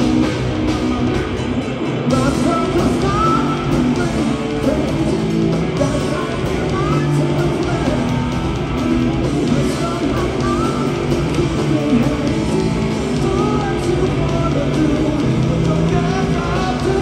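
Loud live rock music from a guitar, bass and drums trio, with a wavering electric guitar or vocal line over the band.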